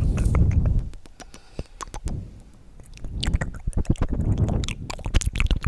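Close-miked ASMR trigger sounds: a dense run of quick, sharp clicks over two swells of low rumbling, one at the start and a longer one from about three seconds in.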